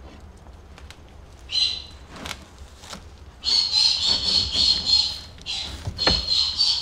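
Chinese Crested puppies squealing in high-pitched cries: a short one about a second and a half in, then longer runs through the second half. A single thump near the end.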